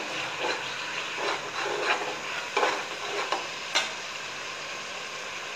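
Metal spoon stirring and scraping a simmering onion-and-spice masala around an aluminium pot, with a steady sizzle of frying underneath. It makes about six separate scraping strokes, spaced irregularly.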